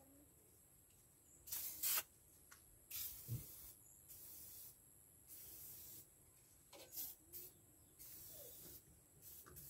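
Aerosol spray can sprayed onto a drum-brake assembly with a seized brake piston, in about six short hissing bursts of under a second each, with a few light clicks between them.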